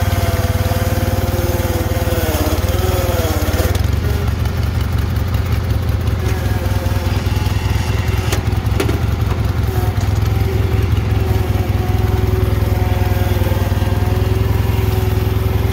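International Cub Cadet 782 garden tractor engine running steadily. Its speed sags briefly about two to three seconds in and then recovers. A couple of short clicks come about eight seconds in.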